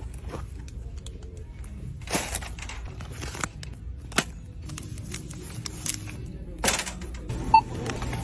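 Handling and rustling of store packaging, with a sharp click midway, over a low steady hum. Near the end a checkout barcode scanner beeps once.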